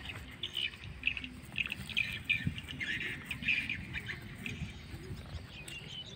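Small birds chirping in quick, dense clusters of short high calls, with low rustling and handling noise underneath.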